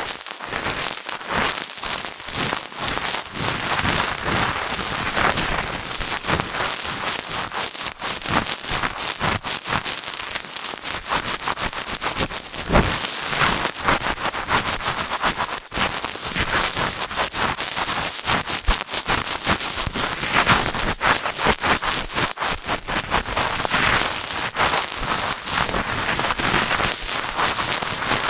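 Cotton swab rubbing and scraping inside a binaural microphone's ear, a dense, continuous crackling scratch with many close clicks.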